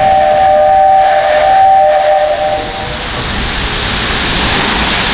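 Steam locomotive whistle blowing one steady two-note blast for about three seconds, then steam hissing out, building toward the end, as the engine starts to reverse.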